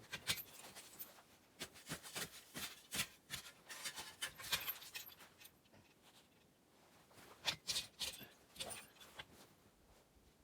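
Irregular crunching and scraping in snow, coming in clusters with short pauses: a heavy cluster over the first few seconds, another about three quarters of the way through, then fading out.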